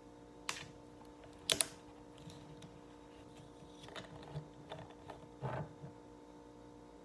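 Sharp clicks and taps from handling a metal bottle-can of coffee. The loudest is a quick double click about a second and a half in, with smaller clicks between about four and six seconds in, over a faint steady hum.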